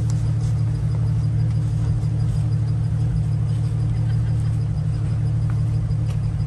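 A Jeep driving with a steady, unchanging low drone from its engine and drivetrain, and a faint steady hum above it.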